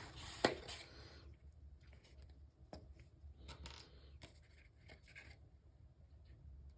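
Faint handling of a cardstock piece while glue goes on a flap: soft scratchy rustles and light ticks, with a sharper click about half a second in.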